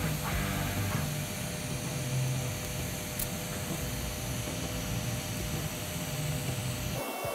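TIG welding arc on duplex stainless steel pipe during the cap pass, a steady hiss over a low hum. Near the end the low hum drops away and the sound changes.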